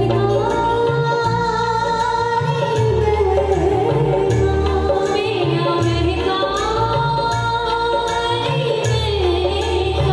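Two women singing a song in turn through handheld microphones, with long held notes that slide in pitch, over an instrumental accompaniment with a steady bass and beat.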